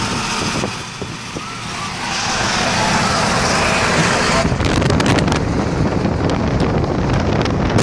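Traffic noise heard from a moving car as it drives alongside and past a bus: steady road and engine rumble that grows louder about two seconds in, with a cluster of crackles on the microphone around the middle.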